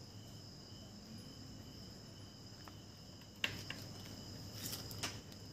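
Crickets chirping in a steady, faint high trill. A few short clicks sound about three and a half and five seconds in.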